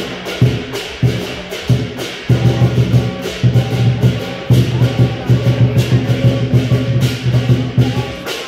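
Lion dance percussion: a large drum beaten in fast, driving rolls that break off briefly and start again, with sharp cymbal clashes on top.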